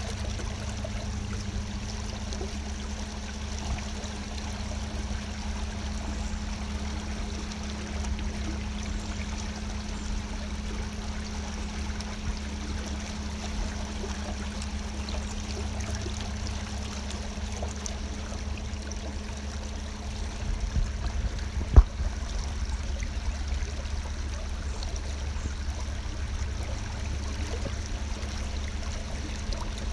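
Water swishing and trickling with a steady low hum and rumble, as from a small boat moving slowly along the river. One sharp knock sounds about twenty-two seconds in.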